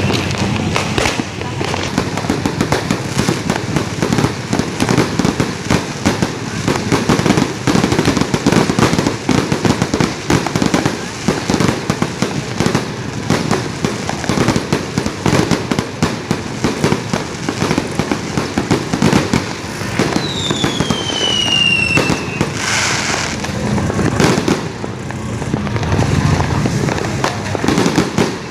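A dense, unbroken barrage of New Year's firecrackers and fireworks crackling and banging. About twenty seconds in, a whistling firework glides down in pitch over a couple of seconds.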